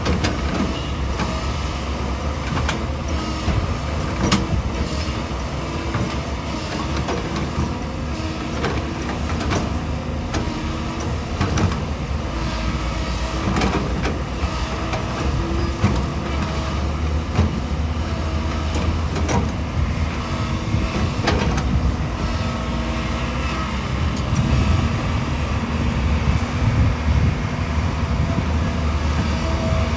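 Hydraulic excavator's diesel engine running steadily, with scattered sharp knocks and clanks from its working gear.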